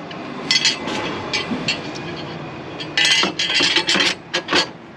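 Hard metal parts clinking and scraping against each other as they are handled, in several quick clusters of sharp taps with a brief metallic ring, the busiest about three seconds in.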